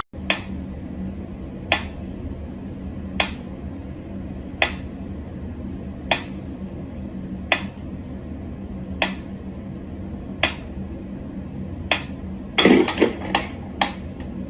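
Wind-up pyramid metronome ticking slowly and evenly, one sharp tick about every second and a half. Near the end a quick cluster of knocks and rattles.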